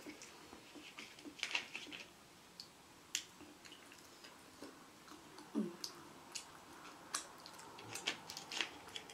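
Quiet eating sounds at a meal table: wet chewing and mouth noises with scattered light clicks and crackles. A short falling vocal sound comes a little past halfway.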